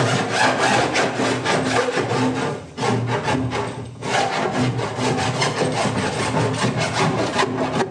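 Hand file scraping along the jigsaw-cut edge of a plastic 55-gallon drum in quick back-and-forth strokes, deburring the edge to take the sharpness off. The stroking pauses briefly about three and four seconds in.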